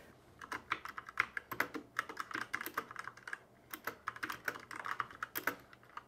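Typing on a GM610 60% mechanical keyboard: a quick, uneven run of key clicks, with a short pause a little past halfway.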